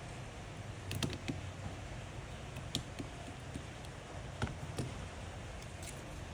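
Scattered light clicks and taps of small repair tools against phone parts, irregular and a few per second at most, over a steady low hum.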